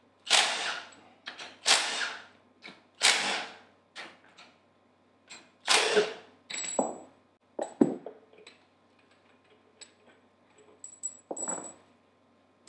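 Cordless impact wrench run in four short bursts, loosening the head bolts on a Hypro D50 diaphragm pump. Several lighter knocks and clunks of metal parts being handled follow.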